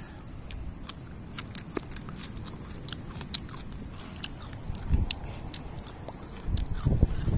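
Close-up chewing and crunching of a tough, fibrous piece of seashore pandan (Pandanus tectorius) fruit, with many irregular crisp crunches. Wind starts to buffet the microphone near the end.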